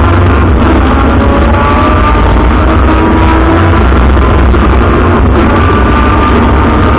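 Rally car engine running hard under load, heard from inside the cabin, loud, with its pitch rising gradually as the car accelerates.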